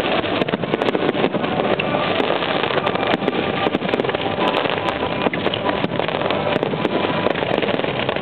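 Fireworks display: many aerial shells bursting in quick succession, their sharp bangs and crackling running together into a continuous rumble.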